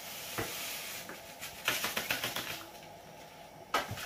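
Sugar poured from a bag into a large pot of thickening kheer, hissing softly, then a quick run of clicks and rustles and one sharp knock near the end as the long wooden paddle goes into the metal pot to stir.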